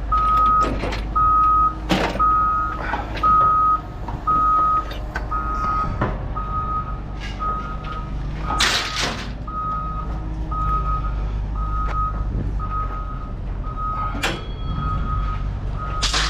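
A vehicle's reversing alarm beeping steadily about twice a second over a running engine, with a few clanks and a loud burst of noise about halfway through.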